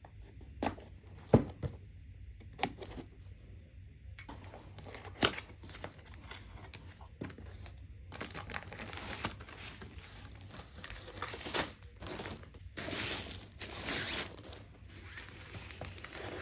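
A cardboard kit box being slit and worked open: a few sharp snaps and clicks in the first seconds. From about halfway on comes steadier rustling and crinkling of paper and plastic packaging as the rolled, film-covered canvas is pulled out and unrolled.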